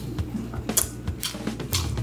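Close-up eating sounds: wet chewing of salted seafood and rice, with several short clicks of utensils against dishes.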